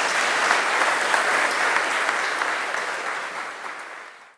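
Audience applauding: dense, even clapping from a large crowd, fading away near the end.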